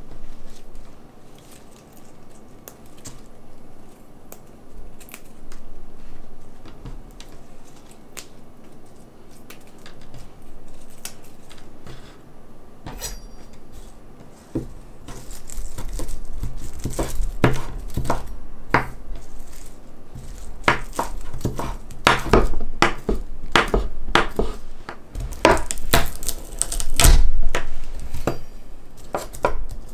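Kitchen knife chopping parsley on a wooden cutting board: a few soft taps at first, then quick, repeated strikes of the blade on the board from about halfway. Near the end a heavier thump as a garlic clove is crushed under the flat of the blade.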